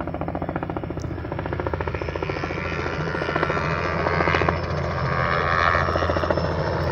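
Small helicopter flying overhead, its rotor beating in a fast, even chop that grows gradually louder as it approaches.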